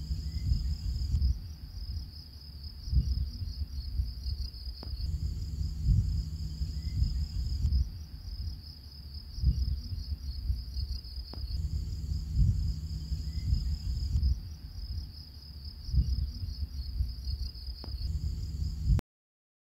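Looped background soundtrack laid over the video: a steady high chirring over a low rumble, the same pattern repeating every six or seven seconds. It cuts off abruptly about a second before the end.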